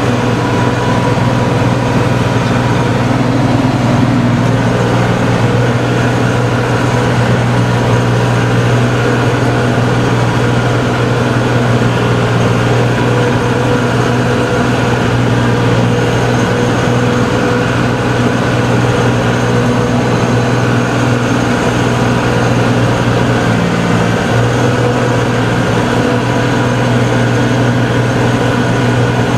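Farm tractor engine running steadily under load, with the PTO engaged and driving a ground-working implement.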